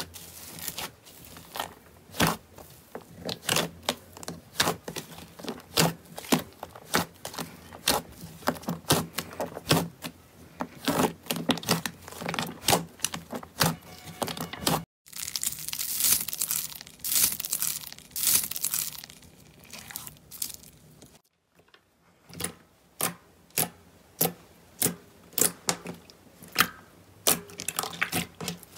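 Slime being squished, pressed and stretched by hand, giving a run of sharp sticky pops and crackles as air pockets in it burst. The crackling grows denser in the middle, and near the end the pops come singly, about one or two a second.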